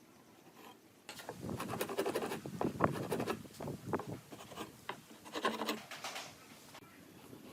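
Irregular scratching and rubbing, as of hand work on wood, starting about a second in and stopping about six seconds in, with a short pitched creak near the end.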